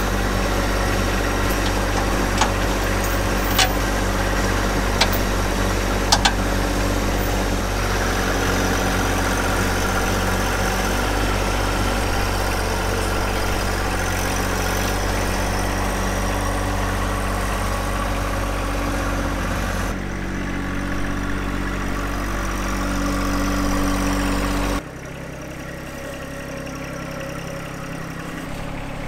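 John Deere 1025R sub-compact tractor's three-cylinder diesel engine running steadily, with a few sharp chain clinks in the first several seconds as the loader chain around the post is handled. The engine becomes quieter and more distant near the end.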